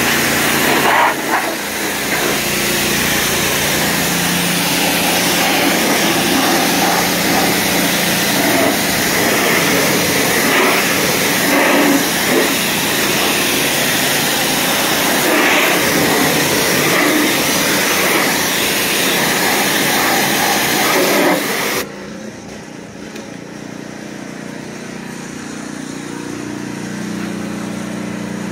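Pressure washer spraying water against a semi truck's wheels and fenders, a loud steady hiss that cuts off suddenly about 22 seconds in, leaving the pressure washer's motor running on its own.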